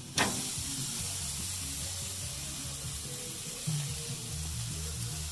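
A raw ribeye steak hitting hot grill grates and sizzling: a sudden hiss about a fifth of a second in that carries on steadily. Background music plays underneath.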